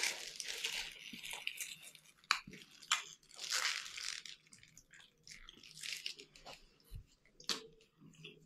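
Close-up eating sounds of a chicken shawarma wrap: a bite, then chewing with short, sharp clicks at irregular intervals.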